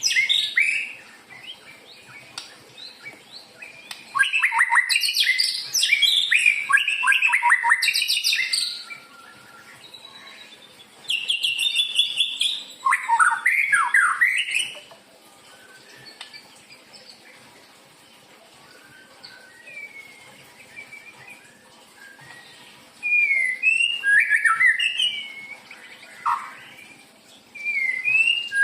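White-rumped shama (murai batu) singing: bursts of loud, varied whistled phrases mixed with rapid chattering notes, with pauses of a few seconds between bursts. It is a lure song of the kind played to provoke other shamas into singing.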